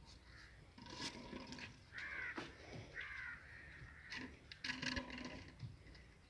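Crows cawing, a few short harsh calls, faint, with scattered light taps and scuffs.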